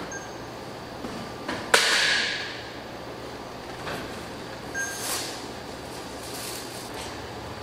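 A few sharp clinks and knocks of glass jars being handled and set down on a stainless steel worktable, the loudest a little under two seconds in with a brief ring after it.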